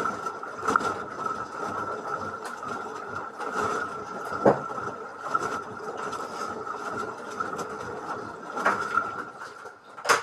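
LG washing machine running: a steady motor whine over the churning of the turning drum, with a knock about every four seconds. The sound cuts off suddenly at the end.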